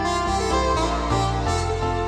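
Background music: an instrumental melody over a steady bass line.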